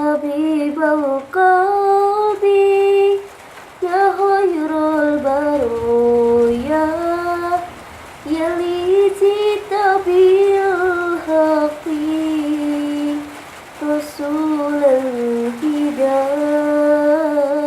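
A high solo voice singing an Islamic sholawat melody without accompaniment, in long melismatic phrases with wavering ornaments. The phrases break for breaths about four, eight and fourteen seconds in.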